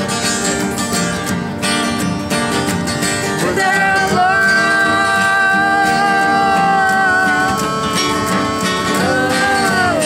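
Live acoustic guitar strumming with singing: a voice holds one long note from about three and a half seconds in for some four seconds, then takes up another held note near the end.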